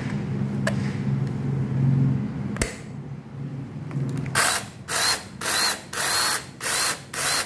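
88-volt cordless mini chainsaw's electric motor triggered in six short bursts, about two a second, each whining up and cutting off, a test run of the chain after its tension was adjusted. A single sharp click comes a couple of seconds before the bursts.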